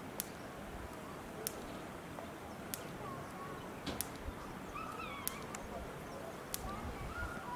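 Outdoor background with a few faint short gliding calls and distant voices, cut by a sharp click that repeats very evenly about every 1.25 seconds.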